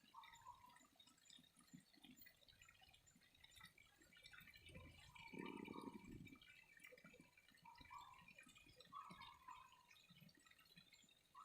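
Faint trickling and dripping water, a little stronger about halfway through, with short calls from a small animal repeating over it.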